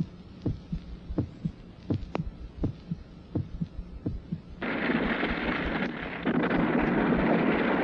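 Soundtrack of regular low thumps like a heartbeat, about two a second, over a steady low hum. A little past halfway a loud, even rushing noise comes in and holds.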